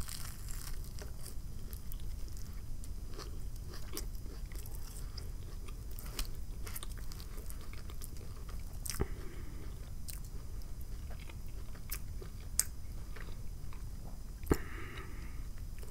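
Close-miked chewing of a bite of a BLT sandwich, with soft crunches, then fingers pulling the sandwich apart, with scattered clicks and a few sharper ones near the end.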